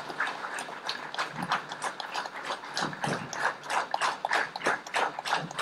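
Audience applauding: many people clapping, individual claps standing out rather than merging into a dense roar.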